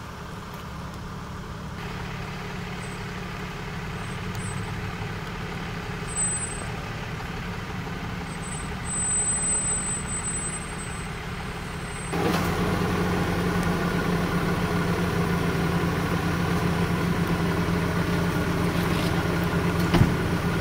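Tow truck's engine idling steadily under a hiss of rain on wet pavement. It gets louder about twelve seconds in, and there is a single sharp clunk near the end.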